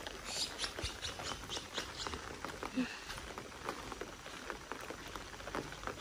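Light rain, with individual drops tapping irregularly and close by.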